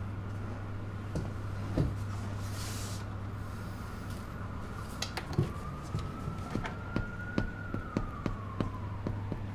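Distant siren wailing, its pitch rising slowly and then falling, over a steady low hum. A run of sharp taps, about three a second, fills the second half, with a single thump about two seconds in.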